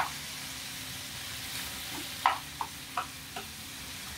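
Chicken breast strips sizzling in hot olive oil in a frying pan, a steady hiss. A metal spoon clinks against the pan at the start and four more times in quick succession from about two seconds in, as the pieces are pushed aside.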